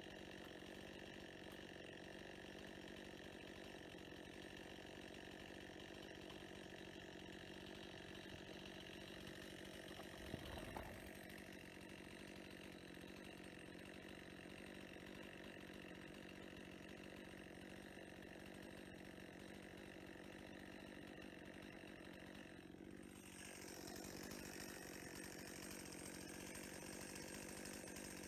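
Chainsaw engine running steadily and fairly faintly, with a short knock about ten seconds in. Near the end the engine note dips and then comes back a little louder.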